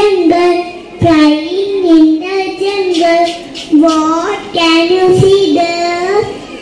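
A young girl singing solo into a microphone, in sung phrases with short breaks for breath between them.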